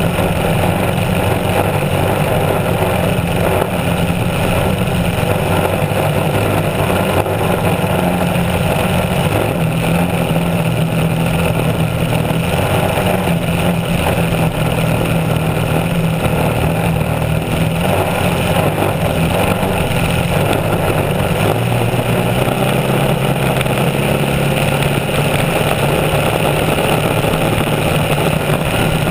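Small wooden racing hydroplane running flat out, heard from on board: a steady, loud engine note over the rush of water and spray. The engine pitch shifts slightly about two-thirds of the way through.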